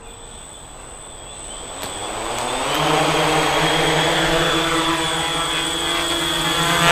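Quadcopter's electric motors and propellers spinning up for takeoff. A high whine and buzz grow louder over the first few seconds, then settle into a steady hum as it lifts off and hovers.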